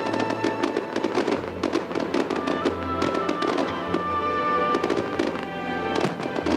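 Fireworks bursting and crackling in quick succession over music played for a musical fireworks display.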